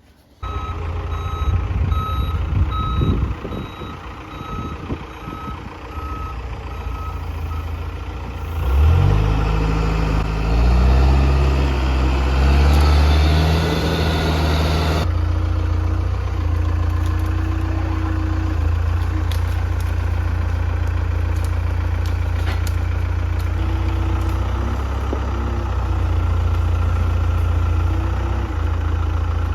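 Heavy diesel machine running with a backup alarm beeping in a steady on-off pattern. About nine seconds in, the engine revs up and then holds a steady drone, and the beeping comes back near the end.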